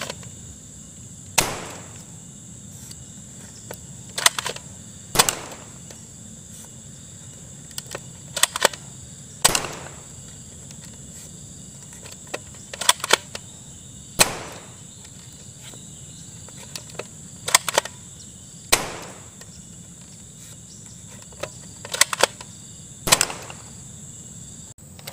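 Plastic toy blaster being fired repeatedly: sharp pops at irregular gaps of one to three seconds, some followed quickly by a second clack, about fifteen in all.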